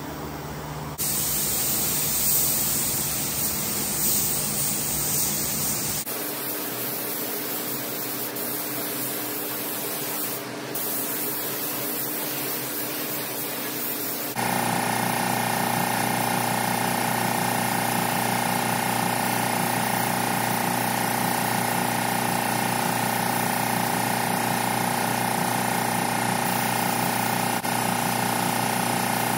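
Gravity-feed paint spray gun hissing as compressed air sprays paint; the hiss changes abruptly a few times, brightest in the first few seconds. Through the second half a steady machine hum with several fixed tones runs under it.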